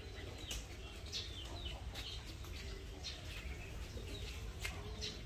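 Faint birds chirping in short, scattered calls over a low steady rumble.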